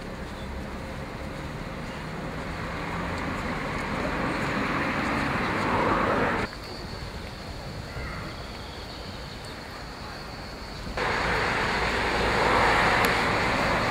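Outdoor street ambience, a rushing haze of traffic noise. It swells over the first few seconds and drops off suddenly about six and a half seconds in, then comes back louder near the end.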